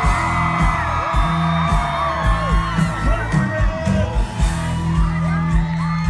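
Live country band playing a song amplified through a concert PA, with a steady kick-drum beat, held bass notes and singing, and whoops from the crowd.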